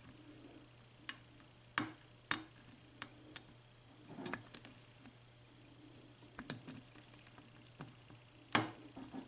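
Lock pick and tension wrench working the pins of a Sargent mortise cylinder lock during single-pin picking: scattered small metallic clicks and ticks at an uneven pace, about a dozen, the loudest near the end.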